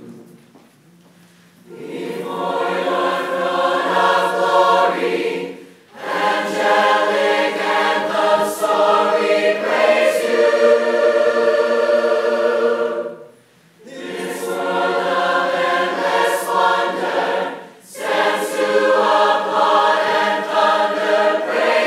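Large mixed choir singing sustained chords in four long phrases, each broken off by a short pause for breath.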